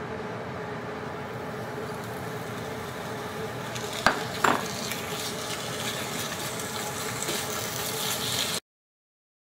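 Chicken thigh pieces sizzling in hot oil in a small cast-iron skillet, the sizzle building up from about three and a half seconds in as more meat goes into the pan, over a steady hum. Two sharp knocks about four seconds in, and the sound cuts off suddenly near the end.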